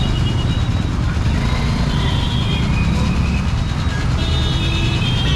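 Street traffic: motor vehicles running with a steady low rumble, with a few short high steady tones over it.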